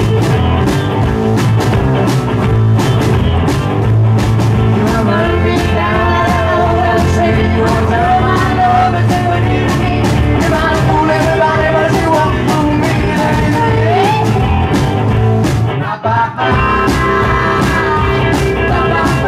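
Live rock and roll band playing: electric guitar over a steady drum beat. About sixteen seconds in the band stops for a moment, then comes back in.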